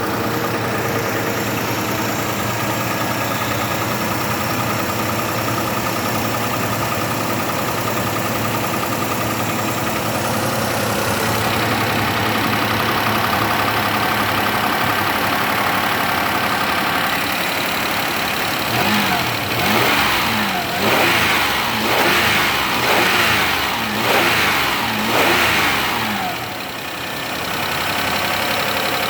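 Car engine idling with knocking hydraulic valve lifters, then revved in about six quick blips, each rising and falling, about two-thirds of the way through, before settling back to idle.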